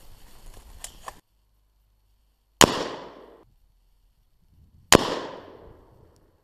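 Two gunshots about two seconds apart, each a sharp crack that trails off over about a second.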